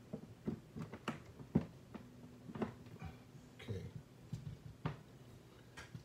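Irregular light clicks and knocks of hands handling a power cord, its plug and a plug-in outlet tester on a workbench.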